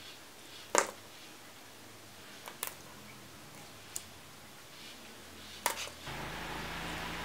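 A few scattered sharp clicks and snips from small pointed scissors trimming paracord and a lighter melting the cut end; the loudest snip comes about a second in. A steady hiss with a low hum comes in near the end.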